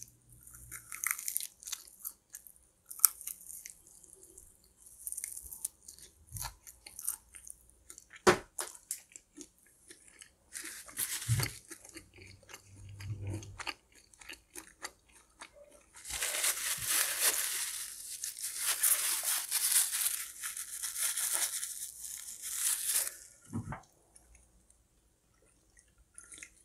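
Close-miked eating of crunchy fried food: sharp bites and chewing, then several seconds of dense, continuous crunching in the second half.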